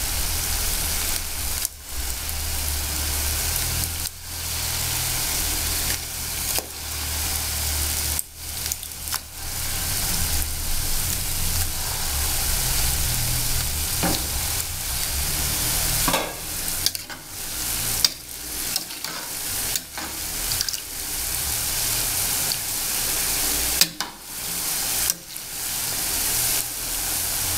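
Batter fritters frying in a pan of hot oil on medium heat: a steady sizzle with a few brief sharp clicks.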